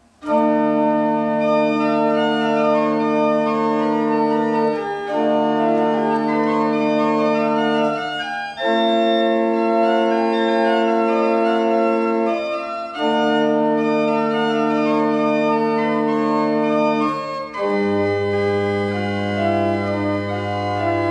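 Hahn pipe organ playing the postlude, a 17th-century hymn setting. It plays full held chords that change every four seconds or so, and deep pedal notes come in near the end.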